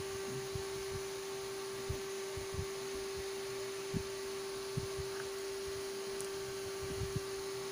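A steady hum holding one unchanging tone throughout, with a few faint, short low thumps from hands handling a headphone cable.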